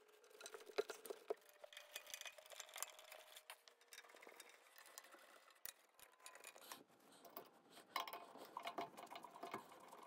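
Faint clicks, taps and scrapes of plastic slat holders being handled and set against a metal bed-frame rail. Near the end a busier stretch of scraping clicks as a Phillips screwdriver turns a self-tapping screw into the rail.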